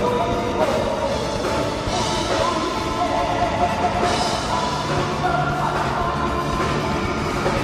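Music with a singing voice, playing continuously at a steady level.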